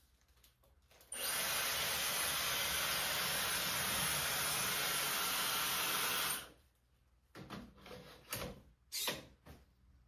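Dyson hair dryer blowing, a steady rush of air with a thin high whine over it, switched on about a second in and off about five seconds later. A few short knocks and clicks follow as the dryer is set back in its cradle.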